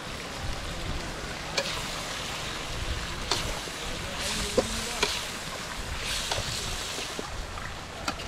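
Onion-tomato masala frying in oil in a metal kadai over a wood fire, with a steady sizzle. A metal spoon stirring it scrapes and clinks against the pan a few times.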